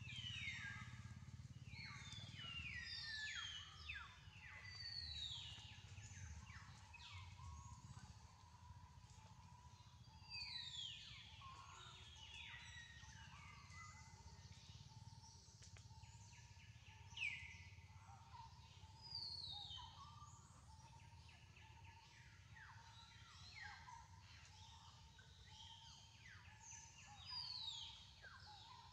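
Faint outdoor ambience with birds calling: repeated runs of quick, high notes that slide downward, over a low steady background rumble.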